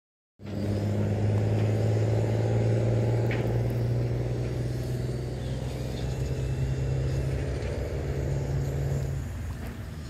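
An engine running steadily, a low hum at a constant pitch, which dies away near the end.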